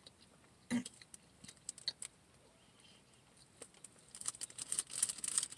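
Close-up eating sounds: chewing and wet lip and mouth clicks, sparse at first and coming thick and fast from about four seconds in, with a short hum of voice just under a second in.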